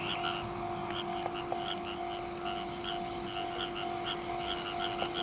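Chorus of frogs: many short calls repeating several times a second, over a steady low hum.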